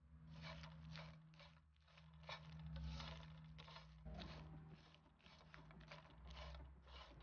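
Dried anchovies being stirred and turned in a nonstick frying pan with a wooden spatula: faint, dry, crisp rustling and scraping, about two strokes a second, over a low steady hum.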